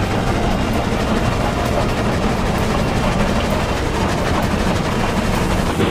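Steam locomotive running, heard as a steady, noisy rumble.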